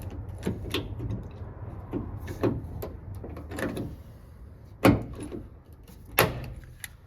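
Irregular metal clicks, clanks and a few sharp knocks from fitting the window regulator inside a truck door, the loudest knocks about five and six seconds in.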